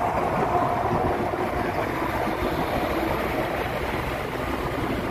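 Steady highway traffic noise from driving alongside a tractor-trailer bulk tanker: tyre and wind noise, with the truck's engine and wheels running close by.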